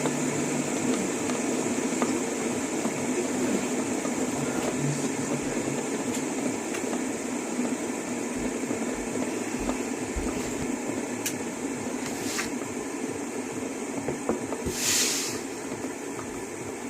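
Several fidget spinners whirring together on their ball bearings in a steady, rattling drone that eases slightly as they begin to slow down. A short hiss sounds near the end.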